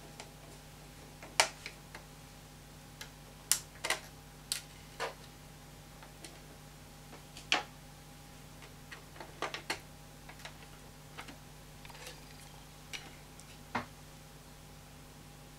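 Irregular sharp clicks and taps of hands working on a laptop's underside, handling the plastic memory-slot cover, small screws and memory modules, over a steady low hum.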